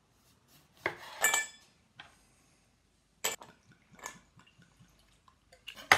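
Ice cubes dropped into a drinking glass, clinking and knocking against it several times at uneven intervals; one clink about a second in rings briefly.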